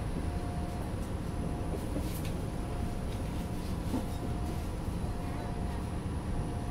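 Steady low rumble of a Beijing city bus heard from inside, with a faint whine that comes and goes and a sharp click about two seconds in.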